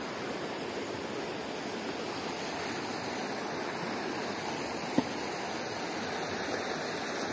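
River water rushing over rocks in shallow rapids, a steady rush, with one short sharp click about five seconds in.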